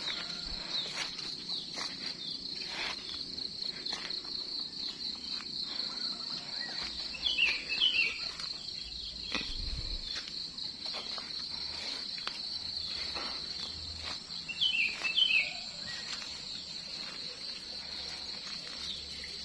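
Steady high insect trill, a cricket-like drone, with a bird giving a few short falling calls twice and light footsteps and rustling through grass.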